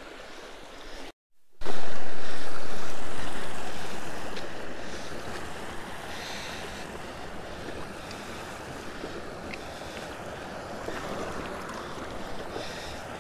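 Rushing noise of creek water and wind on the microphone. It starts loud just after a brief silent gap about a second in, fades over several seconds, then settles into a steady hiss.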